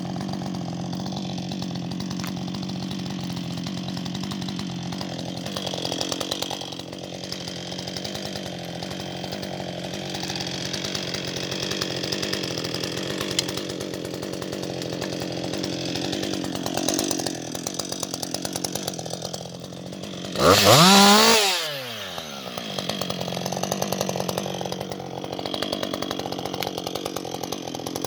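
Husqvarna 560XP two-stroke chainsaw running steadily. About twenty seconds in it gives one short, loud full-throttle rev, then its pitch falls away quickly as the throttle is let off.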